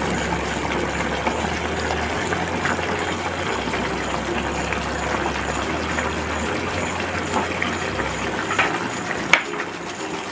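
Steady hissing, bubbling noise of the thick curry gravy cooking in the pan on the stove, with a few light clicks near the end.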